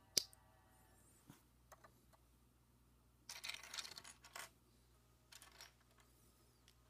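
Small plastic Lego minifigure parts being handled: one sharp click just after the start, a few faint light clicks, and two short spells of rustling handling noise.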